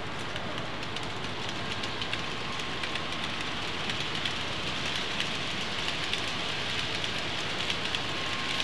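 Model train running on layout track: a steady rushing noise of wheels on rails, peppered with many fine clicks, with a faint steady tone underneath.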